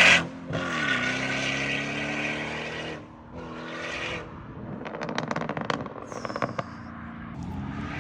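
Audi S6 with a pops-and-bangs tune coming off the throttle after a hard rev: the engine note drops away and runs on, swells briefly, then the exhaust crackles and pops in a rapid cluster on the overrun from about five to seven seconds in.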